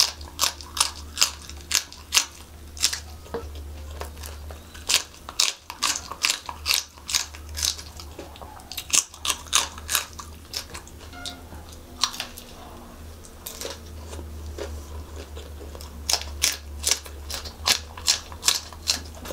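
Close-up crunching of raw green chillies being bitten and chewed: quick runs of crisp crunches, several a second, in bursts with short lulls between. A steady low hum runs underneath.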